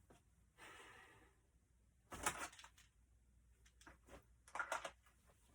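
Near silence broken by faint rustling and two short clusters of light clicks and knocks, about two seconds in and near the end, like gear being handled.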